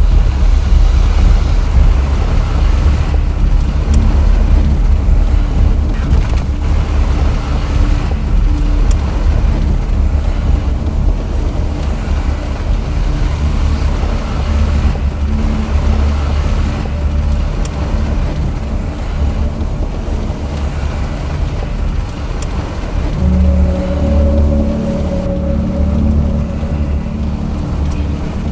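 Vehicle driving: steady road and engine noise, with a steady hum coming up about twenty-three seconds in.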